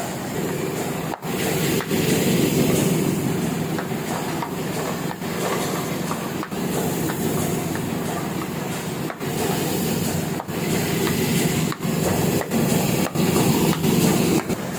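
Heidelberg sheet-fed offset printing press running at speed, a steady dense mechanical clatter and rumble that dips briefly several times.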